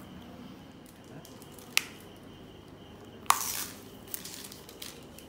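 Samsung Galaxy J3 Pro smartphone being picked up off a wooden table and handled: a sharp click about two seconds in, then a louder knock with a brief scrape a little past halfway, followed by a few light ticks.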